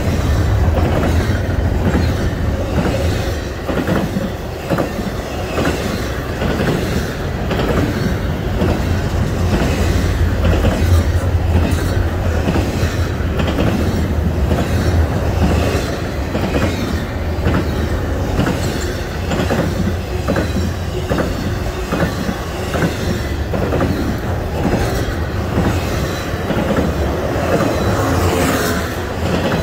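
BNSF intermodal freight train's double-stack container cars and trailer cars passing at speed. A steady low rumble of steel wheels on rail runs throughout, with repeated clicks as the wheels cross rail joints.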